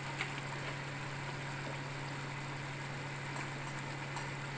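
Steady low hum with an even hiss over it, the background of a kitchen with a steaming pot on a gas stove; a few faint light clicks.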